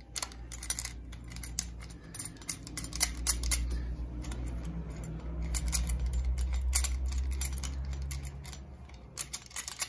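Scattered light clicks, taps and rattles of a motorcycle case saver and its bolts being handled and fitted over the front sprocket, over a low steady hum that swells in the middle and fades near the end.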